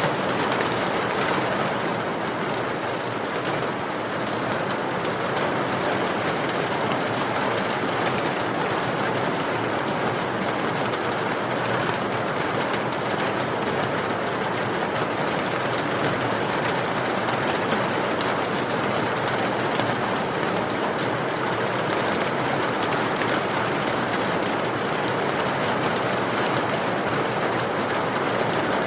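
Steady rain pouring, with the fine crackle of burning firewood in a fireplace.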